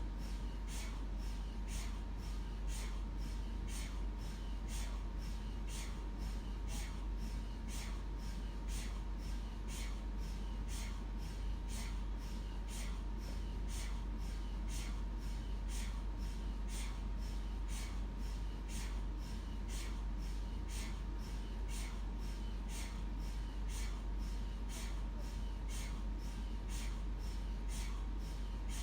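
MRI scanner running a scan sequence: even, rhythmic pulses about two a second over a constant low hum and a faint steady high tone.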